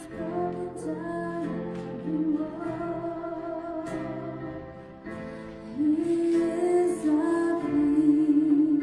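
Slow worship song: keyboard chords with a woman singing the melody, swelling louder about six seconds in.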